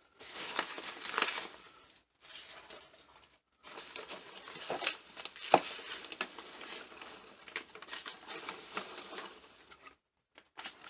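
Shipping box being unpacked by hand: crinkling packaging and rustling packing peanuts around a spool of PLA filament, coming in several stretches with short pauses. There is one sharp click about five and a half seconds in.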